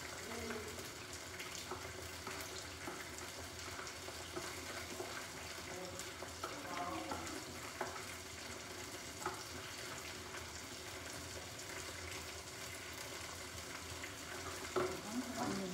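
Panko-breaded pork strips frying in shallow oil in a small pan: a steady sizzle with scattered crackles.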